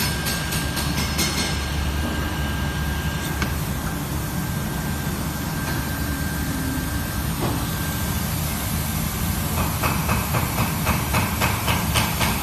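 LST-WP1 automatic hot-air roof welder running under test, its blower giving a steady hiss with a high whine that stops about two-thirds of the way through. In the last few seconds a regular ticking comes in, about three clicks a second.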